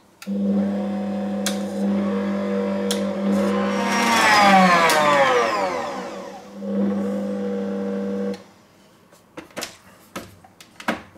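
Bosch MUM5 stand mixer whisking cream: a steady motor hum with a whirring whisk, rising in pitch and then falling back midway as the speed changes. It dips briefly, runs again and cuts off about eight seconds in, followed by a few light clicks.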